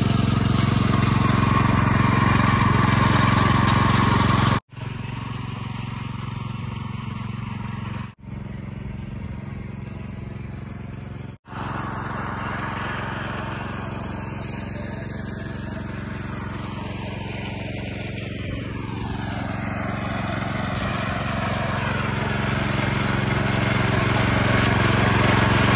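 Engine of a walk-behind power tiller running steadily as it tills dry soil. It is loud for the first few seconds, quieter through the middle, and grows louder again near the end, broken by three brief gaps.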